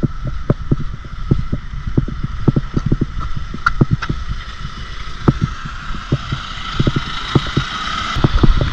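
Walking footsteps and backpack gear knocking against a chest-mounted action camera, with wind rumbling on the microphone. Irregular thumps come two or three a second over a steady high hum.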